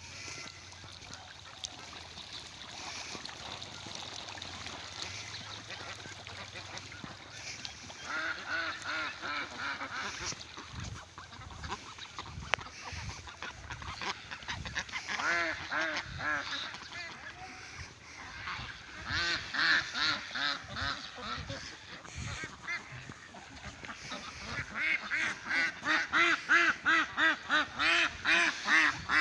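A large flock of domestic ducks quacking in bursts of repeated calls. Near the end comes a long run of rapid quacks, about three a second, louder than the rest.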